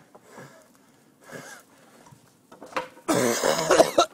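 A person coughing: two faint coughs in the first second and a half, then a loud, harsh cough about three seconds in, lasting about a second.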